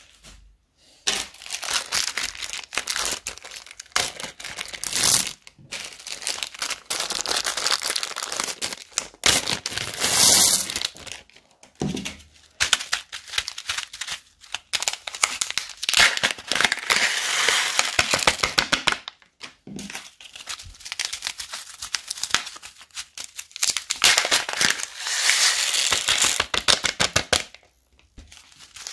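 Small plastic bags crinkling and crackling as hands squeeze and open them, in several long bursts broken by brief pauses.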